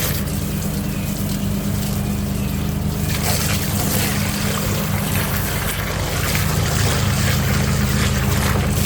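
Water spraying and splashing onto rusty grill grates to rinse off a Bar Keepers Friend paste, a steady hiss of running water. A steady low hum runs underneath it.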